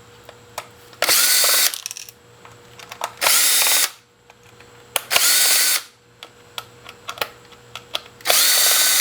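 Cordless power driver whirring in four short runs of under a second each, spinning up at the start of each run, as it backs out the screws holding a small hard drive. Light handling clicks fall between the runs.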